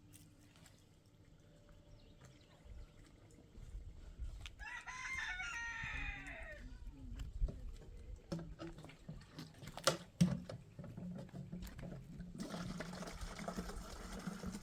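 A rooster crows once, about four and a half seconds in, a call lasting about two and a half seconds; a few sharp knocks follow later.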